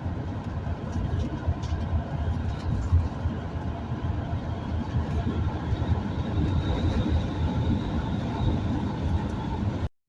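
Steady road and engine noise heard from inside a moving vehicle's cabin on the highway, a constant low rumble. It cuts out abruptly for a moment just before the end.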